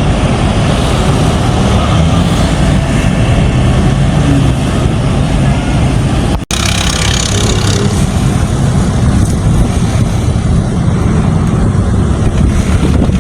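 Loud, steady vehicle and wind noise from travelling along the road. It cuts out for an instant about halfway through.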